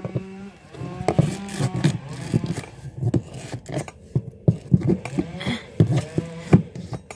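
Repeated sharp knocks, clicks and scrapes of a hairbrush poked into a narrow gap to fish out a dropped door part, with low, drawn-out humming or straining sounds from the person doing it a few times in between.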